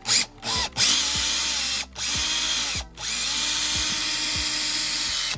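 Power drill enlarging the too-small holes in a license plate adapter to take M6 screws. It is run in two quick trigger blips, then in three longer steady runs of a second or more with short pauses between them.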